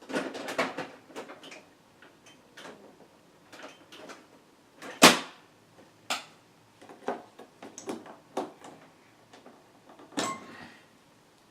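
Irregular clicks, knocks and light clatter of computer hardware being handled, with one sharp knock about five seconds in.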